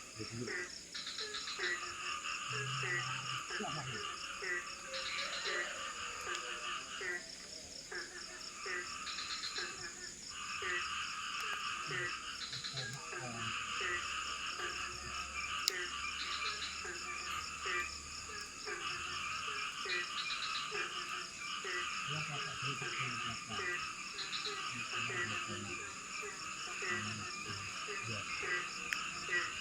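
A chorus of frogs calling, with many short notes repeating in overlapping rhythms over a steady high-pitched hum. A single sharp click comes about halfway through.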